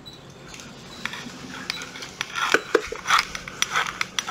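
Light plastic clicks, taps and scrapes from a Panasonic 14.4/18 V cordless drill being handled and turned by hand, with no motor sound: the drill does not run. The clicking gets busier about halfway through.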